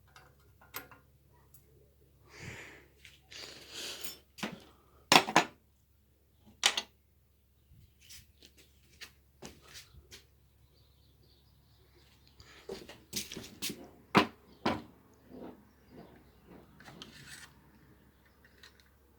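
Irregular clicks, knocks and brief scraping rustles of hands working a vintage smoke alarm loose. The loudest is a pair of sharp knocks about five seconds in, with another cluster of knocks a little past the middle.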